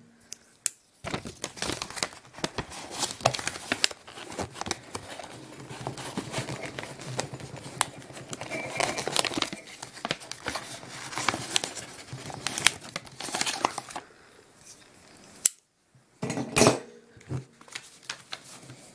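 Paper gift wrapping crinkling and rustling as packing tape is peeled and torn off a small box, with scattered clicks and knocks of handling. It goes quiet for a couple of seconds about three-quarters of the way through, then crinkles again.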